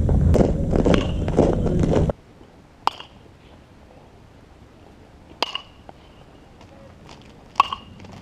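Metal baseball bat hitting pitched balls in batting practice: sharp pings with a short metallic ring, about four hits, the last three roughly two and a half seconds apart. Loud background noise covers the first two seconds and cuts off abruptly.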